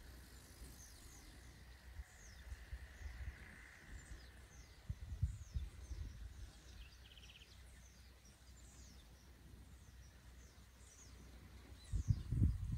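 Small birds chirping repeatedly in short falling notes over a faint outdoor background, with irregular low rumbling bursts that are loudest near the end.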